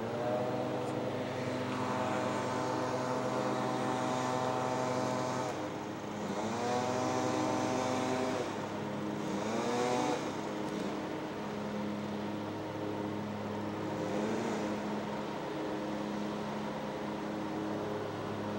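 A motor running with a steady hum, its pitch rising and falling several times, most sharply about six seconds in and again around nine to ten seconds.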